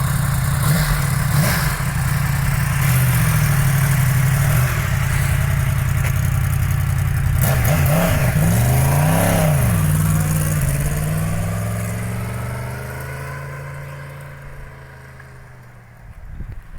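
Yamaha FZ-10's stock exhaust with its crossplane inline-four running steadily, revved up and back down about eight seconds in. The engine sound then gradually fades over the last few seconds.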